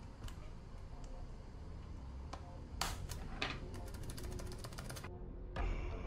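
Sharp plastic clicks of keycaps being unclipped from a ThinkPad X220 keyboard: a few separate clicks, then a quick run of ticks about four seconds in. Background music plays throughout and swells near the end.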